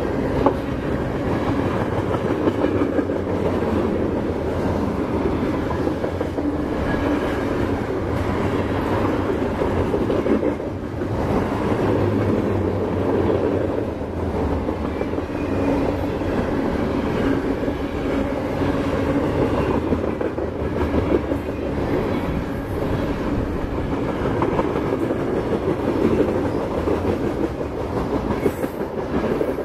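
Freight train of flatcars loaded with trash containers rolling past, its steel wheels running steadily on the rails.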